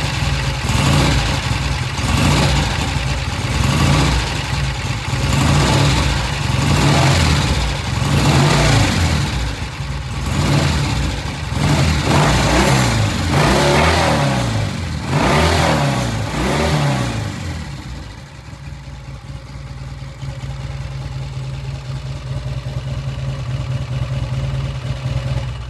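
A 1966 Triumph parallel-twin engine is blipped off idle by hand about ten times, a short rise and fall in revs every second and a half or so. After about 17 seconds it settles to a steady idle. The pilot air screw has just been opened about a turn and a half, and the engine now picks up off idle with no hesitation; the bike sounds good.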